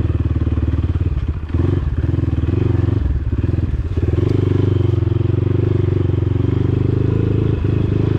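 Dirt bike engine running at low revs while riding, a steady pulsing beat that eases off briefly about one and a half seconds in and again near three seconds.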